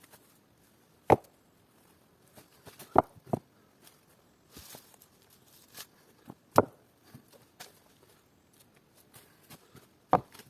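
About five sharp knocks a few seconds apart, two of them close together about three seconds in, with faint rustling and small clicks between them.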